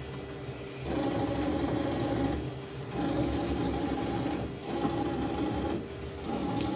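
Axis drives of a Weiler Primus CNC lathe traversing the carriage: a steady motor whine in four short moves of a second or so, each cut by a brief pause. These are the axes' first test moves under a new LinuxCNC control.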